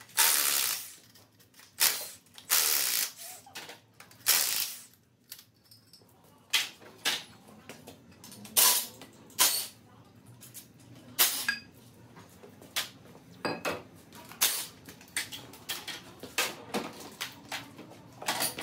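DeWalt cordless impact wrench undoing bolts in repeated bursts: several longer runs in the first few seconds, then many short bursts and knocks.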